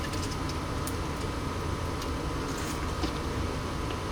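A steady low machine hum with a few steady tones, and faint scattered clicks and taps over it.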